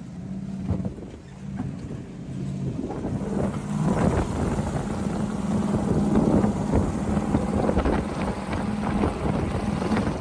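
A vehicle's engine running steadily, getting louder about four seconds in, with wind noise on the microphone.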